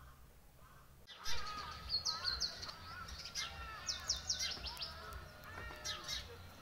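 Several birds chirping and calling at once, starting suddenly about a second in: runs of quick, high, downward-sweeping chirps over lower warbling calls.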